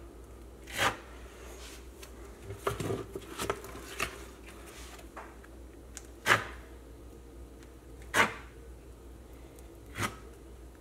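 Small plastic notched trowel spreading Mapei Type 1 tile mastic across a textured wall: a series of short scraping strokes, roughly one every one to two seconds.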